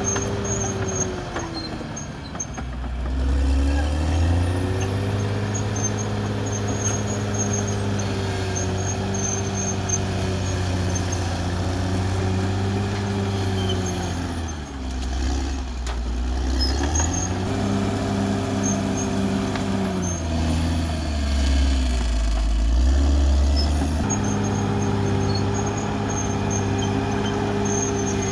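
Caterpillar D6R XL bulldozer's diesel engine working under varying load, its revs dropping and climbing back up three times, then dropping again near the end, with a faint high whine over it.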